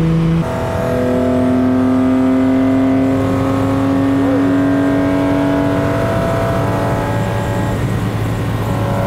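Inside the cabin, a 3.2-litre L28-based straight-six pulls on the open road. There is a short break in the note about half a second in, then the engine note climbs slowly as the car gathers speed, over steady road noise.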